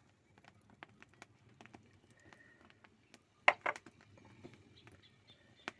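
Scattered small crackles and pops from a cooking fire and the pot of syrup boiling over it, with two sharper knocks about three and a half seconds in and another near the end.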